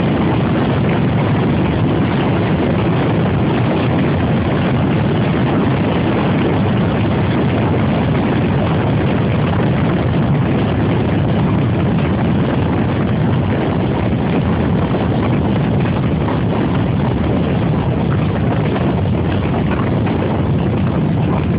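Suzuki GS500E's air-cooled parallel-twin engine running hard at high road speed, mixed with heavy wind rush on the microphone. The revs and road speed ease off gradually as the bike slows from about 170 km/h.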